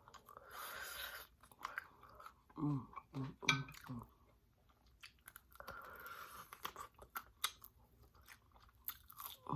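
Close-up chewing and crunching of hard-fried food, with wet mouth clicks.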